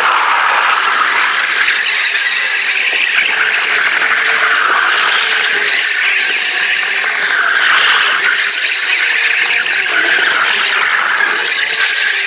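Formula Student race car's tyres squealing continuously as it spins donuts on brick paving, the squeal loud and wavering as the car circles.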